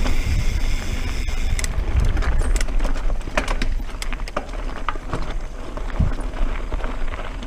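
Mountain bike descending with wind rush on the microphone; the rear hub's freewheel buzzes steadily while coasting and cuts off suddenly about two seconds in. After that, tyres crunch over loose rocks, with irregular clicks and clattering from the bike.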